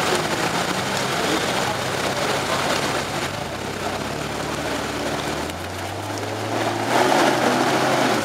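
Off-road 4x4's engine working hard in deep mud, revving up with a rising pitch about five and a half seconds in and getting louder about seven seconds in as the vehicle tips steeply onto its side.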